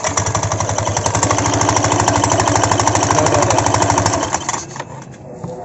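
Yamaha NMAX scooter engine running with the CVT cover off and a loud, fast rattling clatter from the front drive pulley. The nut on the crankshaft is loose, so the pulley wobbles. The noise stops about four and a half seconds in.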